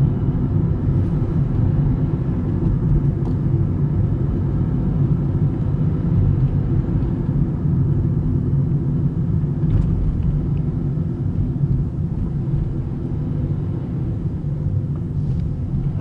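Steady low rumble of a car's engine and tyres on the road, heard from inside the cabin while driving.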